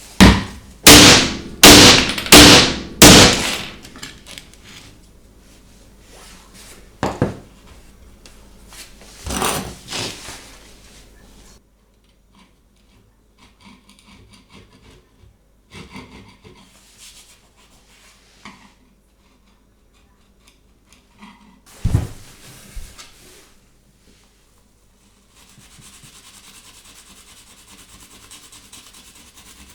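Five quick, loud rubbing strokes on the repaired laminate floor, like sanding or wiping back and forth, then a few scattered lighter rubs and knocks.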